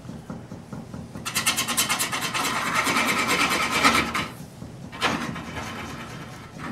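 Spinning wood on a lathe being scraped by a flat hand-held tool pressed into a hollow to smooth its rough bottom. The result is a rasping rub that pulses rapidly and evenly, strongest from about a second in until about four seconds, then lighter.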